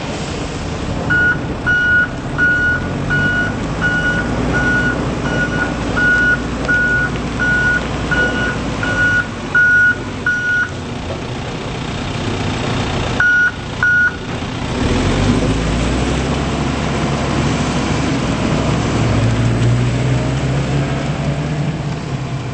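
Diesel engine of a 2008 Volvo BL60 backhoe loader running, with its reverse alarm beeping steadily for about ten seconds, about 1.4 beeps a second, as the machine backs up. Two more beeps follow, then the engine gets louder and deeper as it works harder.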